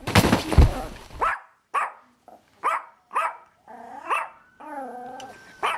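A loud rustling thud, then a dog barking: four short barks, a wavering whine, and one more bark near the end.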